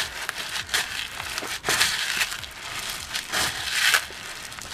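Clear slime being pressed and kneaded by hand into a tub of small plastic slushie beads, giving irregular crunching and crackling as the beads pack into the slime.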